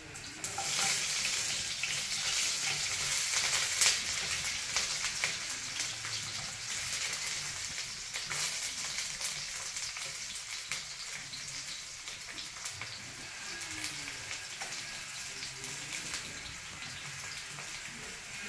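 Onion dropped into hot cooking oil in a cazuela, sizzling sharply the moment it goes in. The sizzle is loudest over the first few seconds, with scattered crackles, then settles into a steady frying sizzle.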